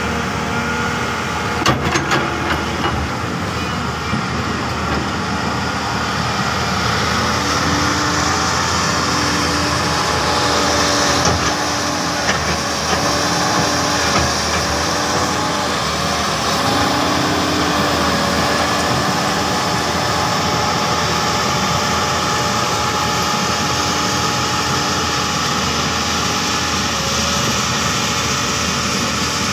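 Hyundai 330LC-9S crawler excavator running close by, its diesel engine and hydraulics giving a steady, loud drone as it moves over mud. A low tone comes and goes in short repeats through the middle.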